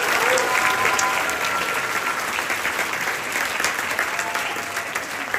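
Audience applauding a school choir, with a few voices calling out over the clapping. The applause slowly fades.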